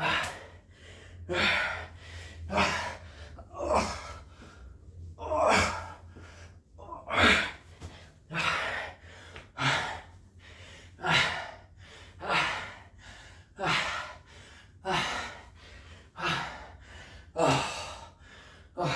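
A man breathing hard in loud, rhythmic gasps about once a second, exhausted near the end of a long, fast set of burpees.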